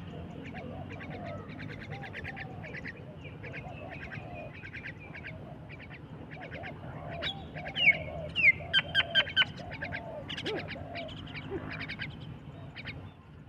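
A flock of mynas chattering: many rapid, short, harsh calls, with lower curved cooing notes beneath. A run of louder, sharper calls and whistles comes about eight seconds in.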